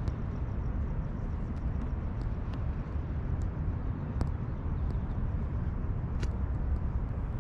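Steady low rumble of street traffic and road noise heard while riding a bicycle, with a few faint ticks.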